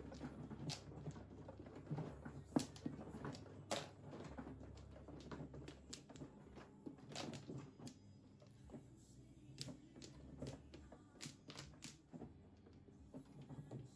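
Mahjong tiles clicking and clacking as players push, draw and set them down on the table: irregular sharp clicks, several a second at the busiest moments.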